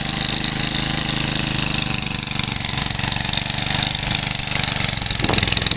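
A John Deere machine's engine running steadily while it clears a path through snow, with a steady hiss over the engine note.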